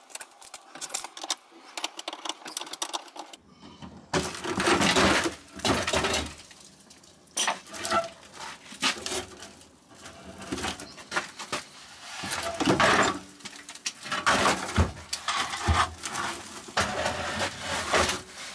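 BMW E46 steel exhaust system being worked loose and pulled down from the underbody: metal scraping and clanking in irregular bursts with sharp metallic knocks, starting about four seconds in after a few quieter clicks.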